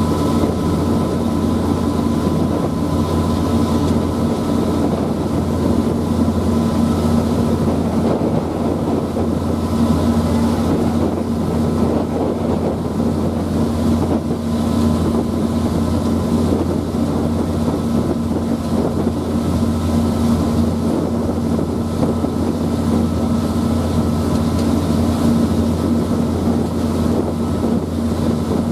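Passenger ferry's engines running steadily under way: a constant low drone with a couple of faint steady higher tones, and wind noise on the microphone.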